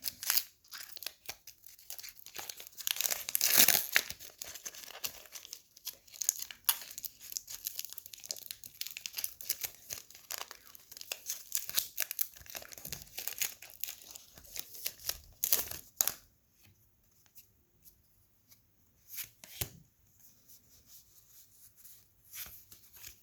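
Foil wrapper of a Pokémon TCG booster pack being torn open and crinkled, a dense crackling rustle for about sixteen seconds. After that it goes much quieter, with only a few faint clicks.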